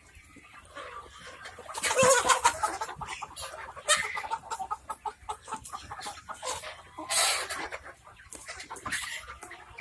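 A flock of chickens clucking and calling in many short, overlapping notes, with two louder, noisier outbursts about two seconds in and about seven seconds in.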